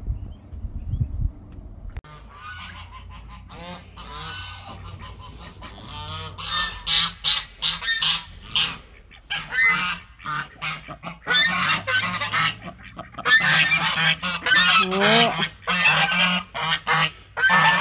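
Domestic geese honking, first in scattered calls and then, about halfway through, in loud, overlapping honks from several birds at once.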